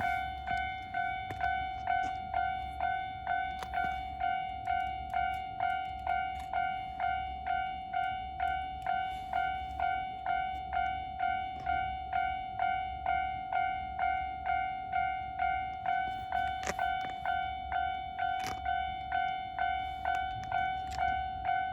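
Japanese railway level-crossing warning bell ringing: an electronic ding repeating about twice a second.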